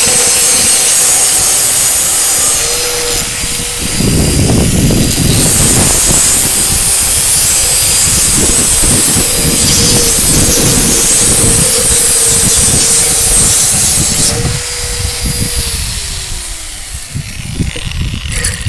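A 5-inch mini angle grinder with a diamond blade, on a low speed setting, cutting through a hard manufactured-stone paving slab: a steady motor whine over loud grinding noise. About 15 seconds in it is switched off and the motor winds down, its whine falling in pitch.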